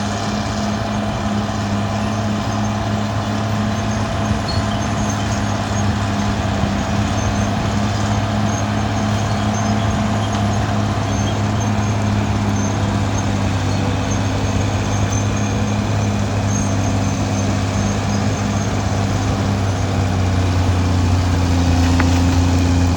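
Caterpillar D6R XL bulldozer's diesel engine running steadily while the dozer works, its note rising a little near the end.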